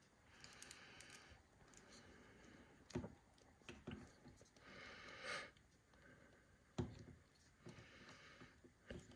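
Quiet handling of a plastic action figure: a few light clicks and knocks as its joints are worked, with faint rustling between them.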